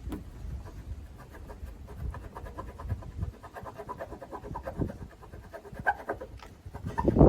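Damp cloth rubbed quickly back and forth against a vehicle's painted panel, working methylated spirits into stubborn foam-tape adhesive to loosen it; a louder knock near the end.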